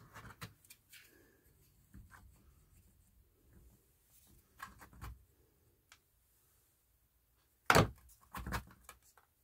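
Faint clicks and scrapes of hands working compost into small plastic plant pots with a plastic dibber. Two louder sharp knocks come near the end.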